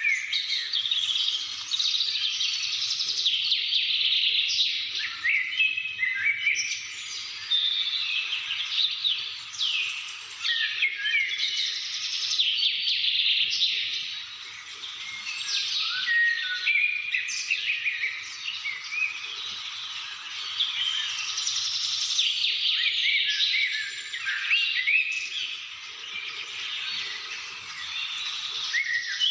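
A chorus of many small birds chirping and singing at once, overlapping calls and trills continuing without a break.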